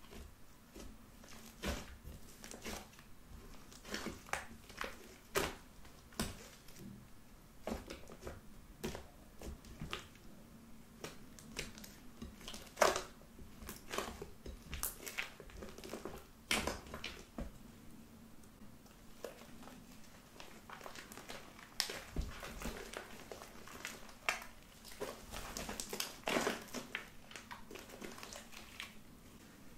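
Fluffy pink slime made with body lotion being kneaded, stretched and squeezed by hand, giving irregular wet clicks, crackles and pops as it folds over itself.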